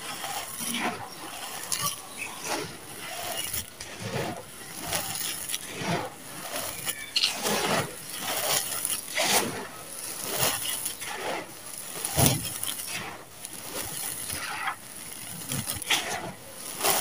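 Dry, gritty red sand with small stones poured from cupped hands back onto a pile in repeated handfuls, the grains hissing and the pebbles clicking and pattering as they land.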